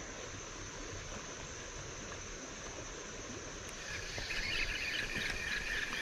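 Steady outdoor background hiss; from about four seconds in, a louder whirring joins it: a fishing reel being cranked to bring in a hooked fish.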